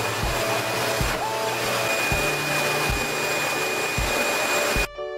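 Wall-mounted pet blow dryer running, a steady loud rush of air from its hose with a thin high whine over it. The sound cuts off abruptly near the end.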